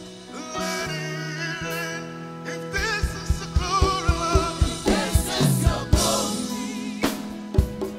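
Live gospel worship music: voices singing with vibrato over sustained keyboard and bass notes, with a steady drum beat coming in about three seconds in.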